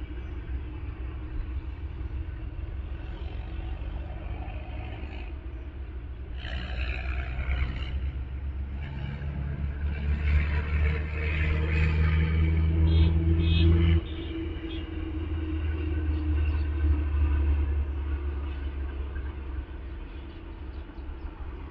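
Distant highway traffic with heavy trucks passing, heard as a low, steady rumble. A truck's engine drone builds to its loudest about two-thirds of the way in, then drops off suddenly.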